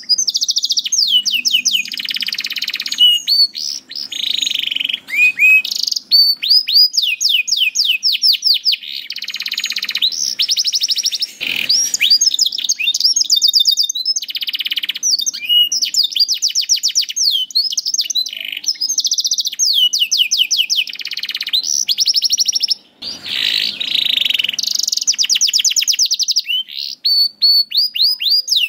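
Domestic canary singing continuously in full song. Long fast trills of rapidly repeated down-slurred notes alternate with buzzy rolls, each phrase lasting a second or a few seconds, with short breaks between.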